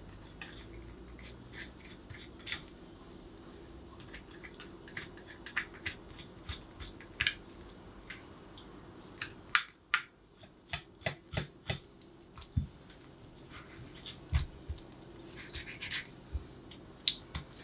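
A knife cutting along the backbone of a fresh black bream on a wooden cutting board: an irregular run of short clicks and scrapes as the blade ticks over the bones, coming thicker in the second half.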